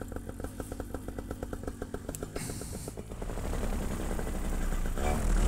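Macfly paramotor's two-stroke engine idling with an even putter. Near the end the throttle opens and it climbs into a loud, rising run as the 140 cm propeller spins up for the takeoff.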